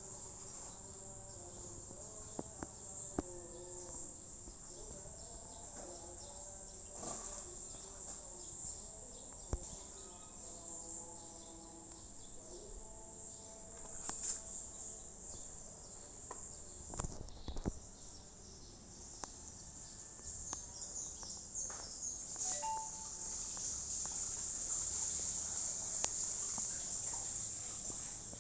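Insects trilling steadily in the background, with scattered faint clicks.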